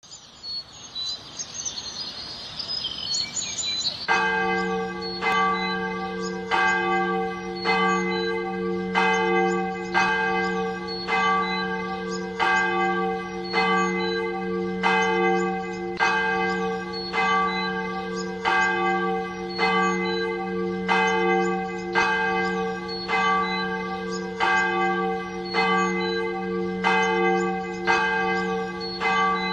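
Church bells ringing, struck about once a second from about four seconds in, each stroke ringing on into the next. Before the bells come in, high chirps over a faint hiss.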